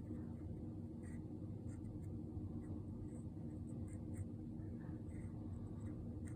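Faint small ticks and light scratchy handling noises from the lighter insert and the fuel can as fluid is squeezed onto the cotton, over a steady low hum.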